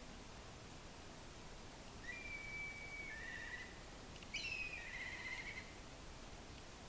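A bird calling twice over faint background hiss. The first phrase is a level whistled note that steps down into a short trill. A second later a louder phrase falls in pitch and ends in a trill.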